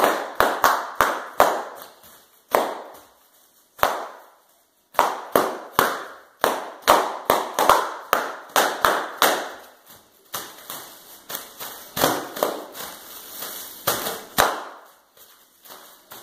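Bubble wrap popping under jumping, stamping feet on a hardwood floor: rapid, irregular sharp pops in flurries, with a short lull about four seconds in, then sparser, softer pops toward the end.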